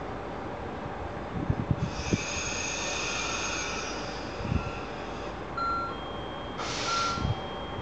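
Station sounds around a standing EF65 electric locomotive and its train: a steady rumble with a few dull thumps. A high whine made of several tones sounds for about three seconds, and near the end there is a short burst of hiss.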